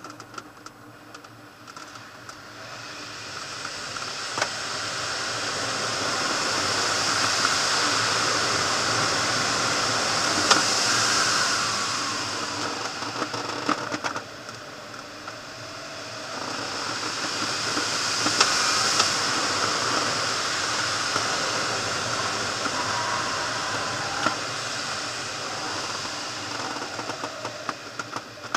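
Air rushing over a glider's canopy in aerobatic flight, a steady hiss that swells twice to a loud rush and fades between, rising and falling with the airspeed through the manoeuvres. Scattered small clicks and rattles sound in the cockpit.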